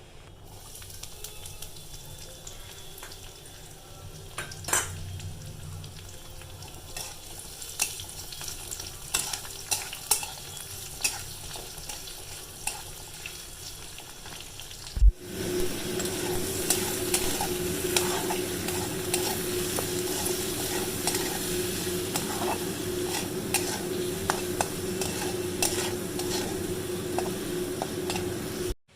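A spatula stirring and clinking in a pan, with scattered sharp clicks. After a cut about halfway, food fries in hot oil with a steady, louder sizzle while it is stirred.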